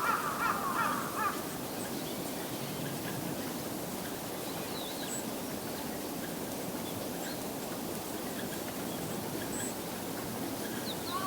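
Outdoor bird calls: a run of repeated mid-pitched calls in the first second or so and again near the end, with a few faint, high, short chirps in between, over a steady low background hum.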